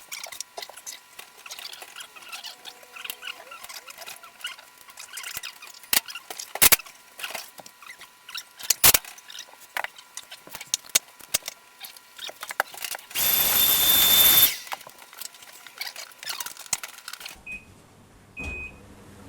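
Clicks and knocks of dryer parts being handled and fitted, with a power driver running for about a second and a half about two-thirds of the way through. Near the end come two short electronic beeps, and a low steady hum begins.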